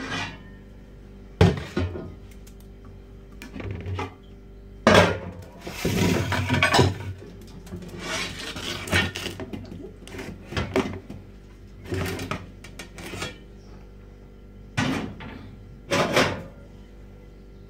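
Metal cooking pots and lids clanking, knocking and scraping against a stove's metal grate in irregular bursts, with several sharp knocks.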